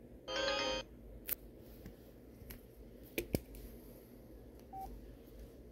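Samsung SCH-R600 flip phone sounding a short electronic jingle of quick stepping tones, about half a second long, as it finishes powering on. A few sharp clicks follow, from the phone being handled, and a faint short beep near the end.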